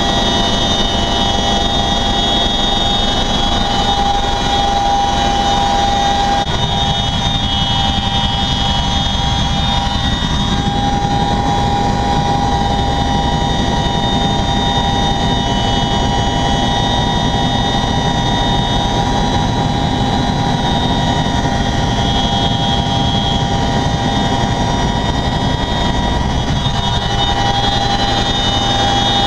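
Boeing CH-47 Chinook twin-rotor helicopter in flight, heard from on board: a loud, steady din of rotors and engines with a constant high-pitched whine over it.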